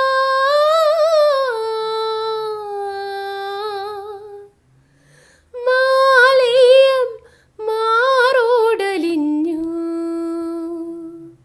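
A woman singing unaccompanied, drawing out long wordless notes with vibrato and small ornaments. The notes come in three phrases with short breaks between them, and the last is a long, lower held note.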